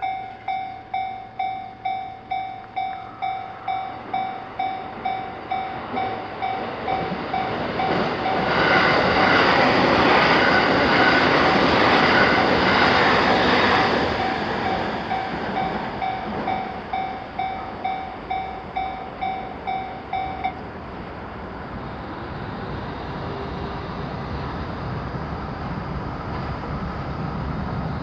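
Japanese level-crossing warning bell dinging in a steady repeating rhythm while a train passes, loudest for several seconds in the middle. The bell stops a few seconds after the train has gone, leaving a low steady rumble that grows louder near the end.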